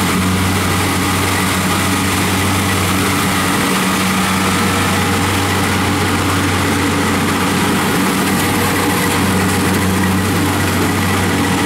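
Kubota rice combine harvester's diesel engine running steadily at working speed while the machine cuts rice, a loud, even drone.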